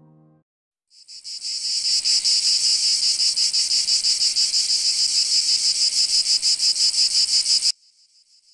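Loud insect chorus: a high, fast-pulsing chirring that fades in about a second in, holds steady, and cuts off suddenly near the end, leaving only a faint trace.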